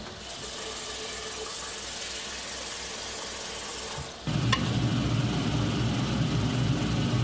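Tap water running into a pot as rice is rinsed. About four seconds in it changes abruptly to a louder, steady low mechanical hum.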